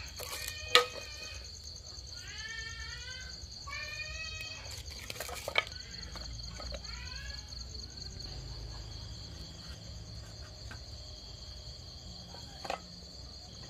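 Night insects trilling steadily and high-pitched, with several short bending pitched calls in the first half and a few sharp wooden knocks, the loudest about a second in, as firewood is handled at a small wood-fired stove.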